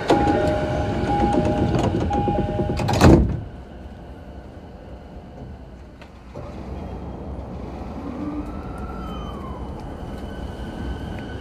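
Inside an E233 series commuter train car at a station stop: a two-tone door chime repeats, then the sliding doors shut with a loud thump about three seconds in. After a few quieter seconds the running noise picks up as the train moves off, and near the end the traction inverter's whine starts to rise in pitch.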